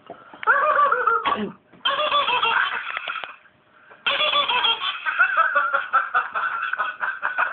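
High-pitched laughter in a parrot's voice: quick runs of 'ha-ha' syllables, far higher than a person's laugh, in three bouts with short breaks between.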